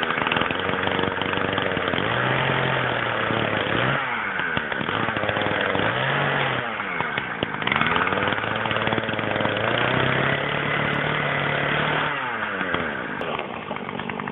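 Stihl chainsaw running at high revs while cutting a submerged log. Its engine pitch drops and climbs back several times as the chain bites and frees, once about four seconds in, again near the middle, and again near the end.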